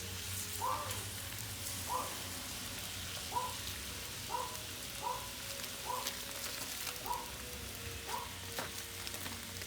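Minced garlic sizzling in oil in a pan, a steady frying hiss. Short pitched chirps come about once a second over it.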